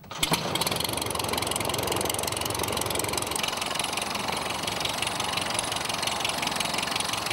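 Walter Mikron engine of a full-scale Tiger Moth replica biplane catching as its propeller is hand-swung, with a few loud first firings about a quarter second in, then running steadily at idle.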